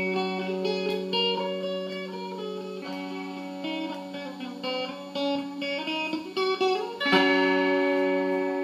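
Sape', the Bornean boat lute, played solo: a melody of quick plucked notes over a sustained low note. About seven seconds in a loud chord is struck and rings on.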